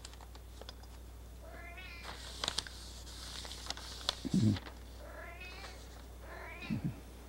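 A domestic cat meowing three times in short, rising calls, over the rustle of paper and a few small clicks as a printed sheet is clipped to a board and smoothed flat.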